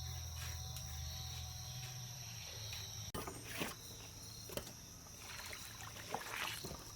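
Steady high-pitched insect drone, with a low hum that fades out over the first three seconds and scattered light clicks and knocks.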